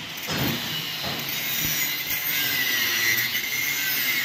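Steel floor grating being cut: a steady hissing cut that takes on a high metallic screech about two seconds in.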